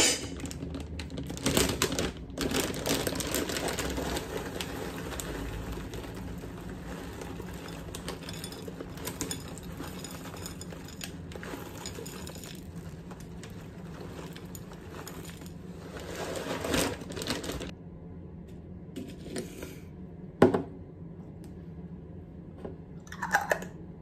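A plastic cereal bag rustling as dry cereal is poured from it into a stemmed glass bowl of yogurt, the pieces falling onto the yogurt and the glass for a long stretch before stopping abruptly. A sharp knock follows, then a shorter one near the end.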